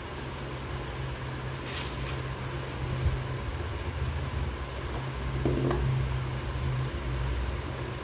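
A steady low mechanical hum over background noise, with a couple of light clicks and rustles from hands handling small plastic wire markers and wire, about two seconds in and again past the middle.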